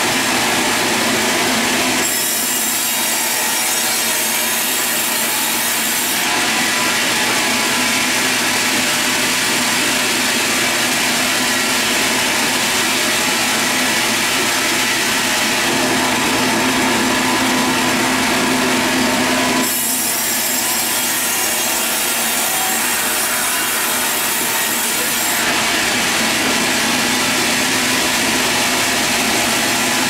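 Sawmill band saw running and sawing timber as boards are fed past the blade: a steady, loud mechanical whine and hiss over a low hum. The hiss changes for a few seconds about two seconds in and again around twenty seconds in.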